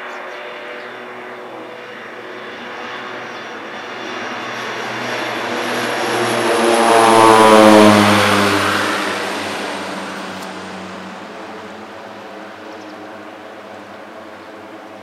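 Aircraft flying past: its engine and propeller drone swells to a loud peak about halfway through, then drops in pitch as it passes and fades away.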